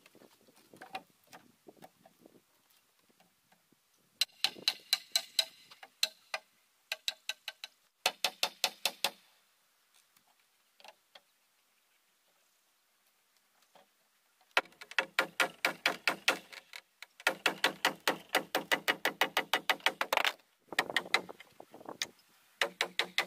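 Hammer tapping nails into pine cladding boards on a timber stud wall, in quick runs of ringing strikes, several a second, with pauses between the runs.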